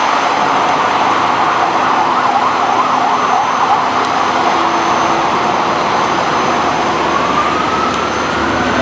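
FDNY fire truck siren sounding loudly. Through the first half it is a rapid, wavering warble; near the end it becomes a slow wail rising in pitch.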